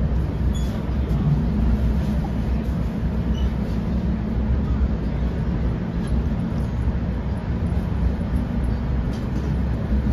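Steady low rumble and hum inside an NJ Transit Comet passenger coach.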